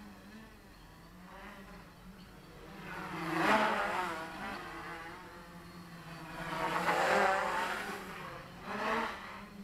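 Quadcopter on 770 KV brushless motors with 10x4.5 propellers buzzing in flight, its pitch wavering as the motors throttle up and down. It swells loud three times as it flies past close: a few seconds in, past the middle, and briefly near the end.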